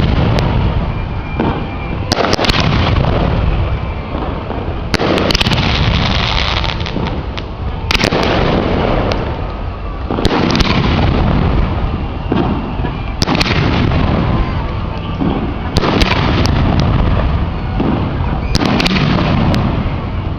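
Professional fireworks display: aerial shells booming one after another, a loud burst every two to three seconds over a continuous rumble of further bursts.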